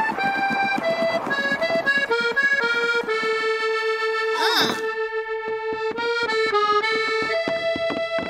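Background music: an instrumental tune with a quick, even rhythm. Near the middle there is a short swoosh sound effect.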